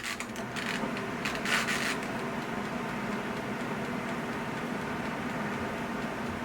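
Standing hooded bonnet hair dryer running with a low, steady whir and hum. Some scratchy rubbing sounds in the first two seconds.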